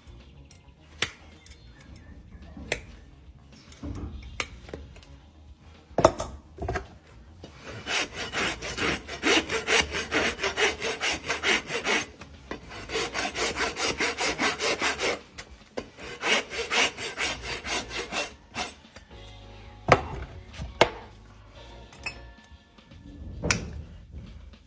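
Farrier's rasp filing a horse's hoof in quick, even back-and-forth strokes, several a second, with a short break in the middle. Scattered sharp clicks and scrapes come before and after the rasping.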